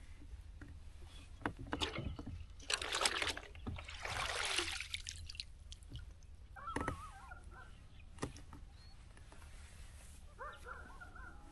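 Water splashing and sloshing around a kayak, with scattered knocks and clicks, and a bird calling twice in the second half.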